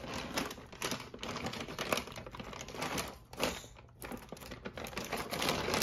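Plastic fruit bag crinkling and rustling as it is handled, with irregular crackles.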